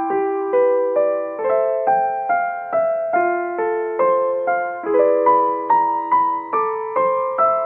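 Background piano music: a gentle, steady run of notes, about two a second, each fading after it is struck.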